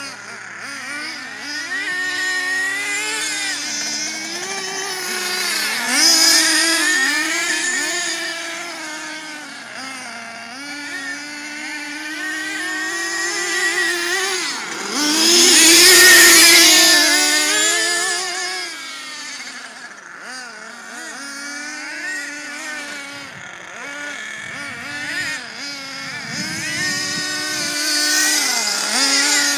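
Nitro RC trucks' small two-stroke glow engines revving up and down as they race. About halfway through comes the loudest stretch, a rush of noise over the engine note as a truck passes close.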